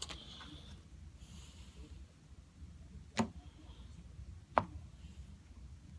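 Quiet handling of trading cards: faint sliding rustles and two sharp taps, about three seconds in and again a second and a half later.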